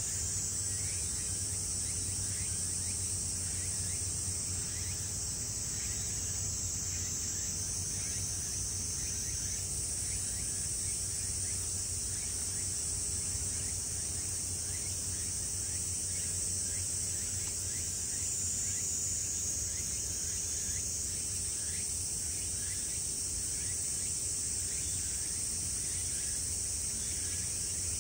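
Outdoor insect chorus: a steady high-pitched trilling that never lets up, with faint short chirps repeating underneath.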